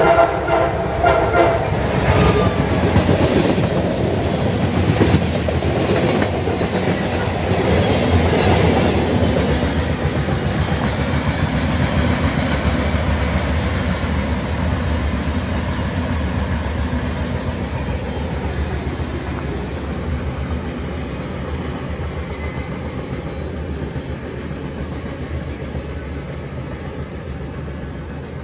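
CSX freight train rolling past, its cars clattering over the rail joints with scattered wheel clicks, the sound fading slowly as the train moves on. The last horn blast cuts off about a second in.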